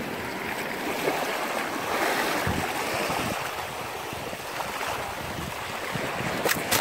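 Sea waves washing on the shore with wind buffeting the microphone, a steady rushing noise. A few sharp clicks come near the end.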